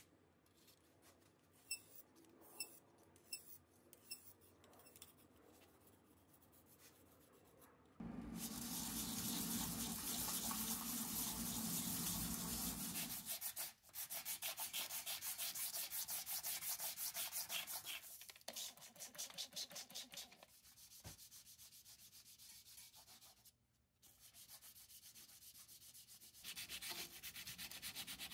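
A few sharp clicks, then sanding from about eight seconds in: a fast, even scratching that breaks off briefly twice and goes quieter for a stretch in the second half.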